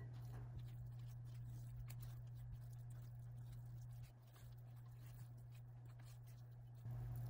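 Faint soft scraping and squishing of a silicone spatula folding thick muffin batter in a glass bowl, over a steady low hum.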